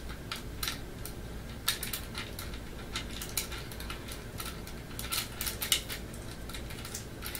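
Scattered small clicks and taps of hard plastic and metal parts as a Crosman C11 airsoft CO2 pistol is handled and worked on by hand.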